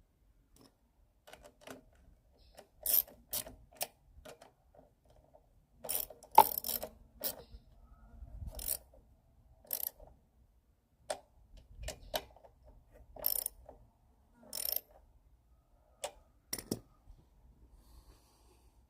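Irregular metal clinks and clacks of hand tools and small lawnmower engine parts being handled, coming in clusters of a few at a time, with the sharpest knock about six seconds in.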